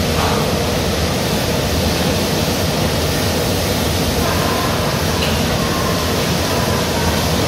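Constant loud industrial noise of a hog slaughterhouse processing floor, an even rush with no distinct events.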